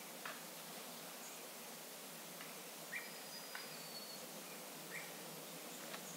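Quiet forest ambience: a steady hiss with about six short, faint chirps scattered through it, and a thin, high whistle a little past the middle.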